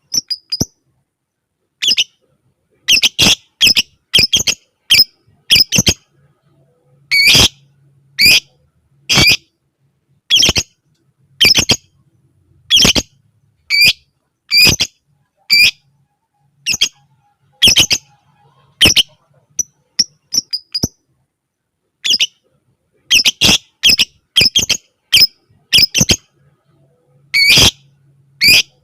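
Lovebird giving short, shrill, clipped calls one at a time, roughly one a second, sometimes two or three in quick succession, with silent gaps between. This is the broken 'ngetik' style of lovebird calling rather than one long continuous trill.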